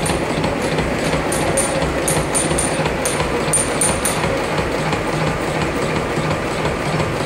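Metal-working slotting machine (vertical shaper) running, its ram stroking up and down with a steady rhythmic mechanical clatter. From about one to four seconds in, sharp ticks come at about three a second.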